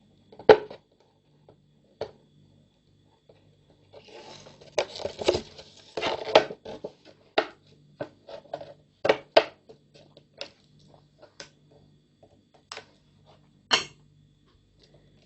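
Cut pieces of a thin plastic soft-drink bottle being handled and pressed together while their edges are melted shut with a soldering iron: irregular sharp clicks and crackles of the plastic, with a denser patch of crackling about five seconds in.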